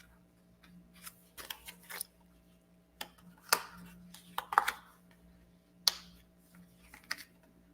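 Tarot cards being handled: scattered light clicks and short rustles, about eight in all, over a faint steady hum.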